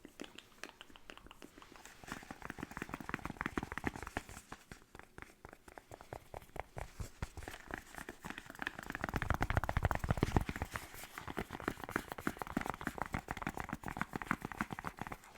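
Rapid fingernail tapping on skincare product packaging: many quick, crisp taps, fuller and heavier for a couple of seconds past the middle.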